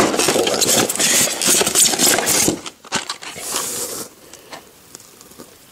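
Styrofoam packing and cardboard crackling and scraping as parts are pulled out of a chainsaw's shipping box, dense for the first two and a half seconds, then a brief rustle and quieter handling.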